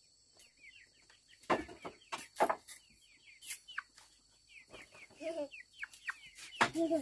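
Chickens: many short, falling, high-pitched peeps throughout, with a hen clucking a few times in the second half. A couple of sharp knocks about one and a half and two and a half seconds in are the loudest sounds.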